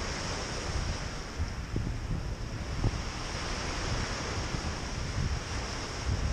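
Small waves breaking and washing up a pebble beach in a steady wash, with wind buffeting the microphone in low gusts.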